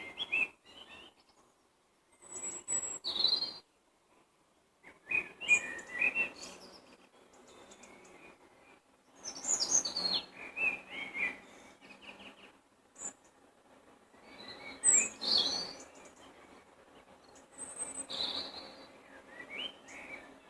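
Songbirds singing in short phrases of high chirps and whistles, a new phrase every few seconds with quieter gaps between.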